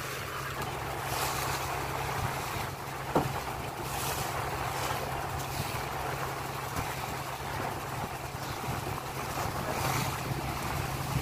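Fishing boat under way: its engine runs with a steady low hum under the rush of water along the hull and wind on the microphone. A single sharp knock about three seconds in.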